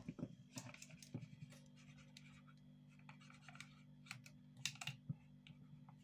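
Marker pen writing on tape over a plastic bucket lid: many short, faint strokes and small clicks, over a steady low hum.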